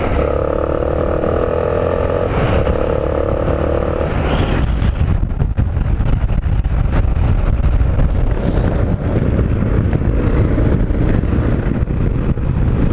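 Motorcycle engine accelerating, its pitch rising, with a short break about two seconds in. From about four seconds in, a steady rush of wind on the microphone covers the engine at speed.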